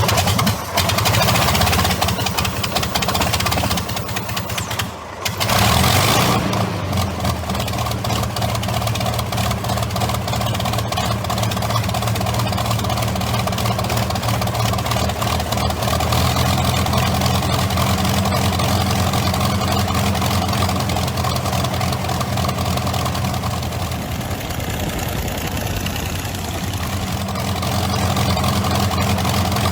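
Allison V-1710 liquid-cooled V12 aircraft engine running steadily, with a brief break about five seconds in.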